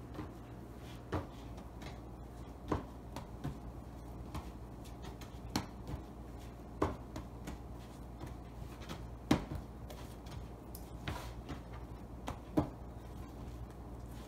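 Bread dough being kneaded by hand on a plastic cutting board: soft thuds and slaps at irregular intervals, roughly one every one to two seconds, over a low steady hum.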